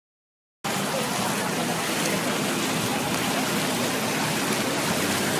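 Steady rushing noise of heavy rain and floodwater, cutting in abruptly about half a second in after dead silence.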